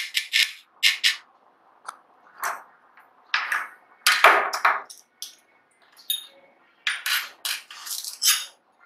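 Irregular metallic clinks and scrapes of small parts being taken out of an opened laptop hard drive: the platter clamp ring, spacer and platters knocking against each other and the drive's metal body. The loudest clatter comes a little over four seconds in, with a quick run of clinks near the end.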